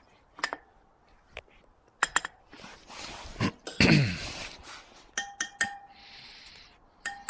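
Wire spokes of a Kawasaki KDX220 dirt bike wheel tapped with a metal wrench, each tap giving a short metallic ping that rings on briefly; a clear, even ring is the sign of a properly tight spoke. A few single clicks come first, and a louder scraping, rustling noise with a falling tone sounds around the middle, before a quick run of three ringing taps.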